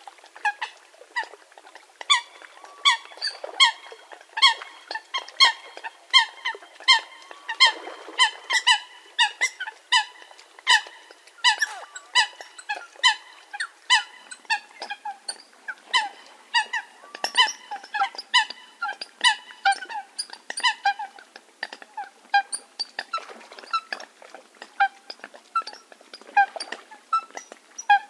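Eurasian coots calling: a rapid series of short, sharp, squeaky calls, two to three a second, thinning out and fading over the last few seconds.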